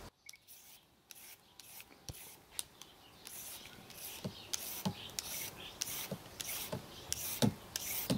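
A carrot being peeled by hand with a blade scraping off strips of skin: repeated short scraping strokes that come faster and louder about halfway through.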